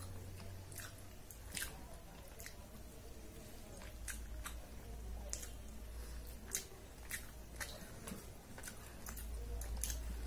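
Close-up chewing and wet mouth clicks of a person eating soft food by hand, with irregular sharp clicks scattered throughout.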